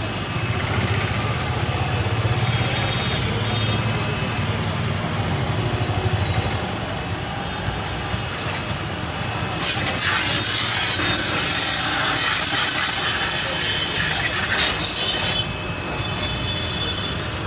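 A 180-bar high-pressure washer runs with a steady low motor hum while its jet sprays water onto scooters. From about ten seconds in, the spray hiss grows much louder and harsher for around five seconds, then drops back.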